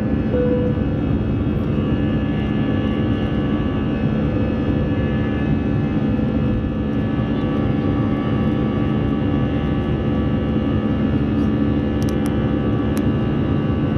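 Jet engine noise of an Airbus A320 heard from inside the cabin: a steady, loud drone with a whine of several held tones over it. A couple of light clicks near the end.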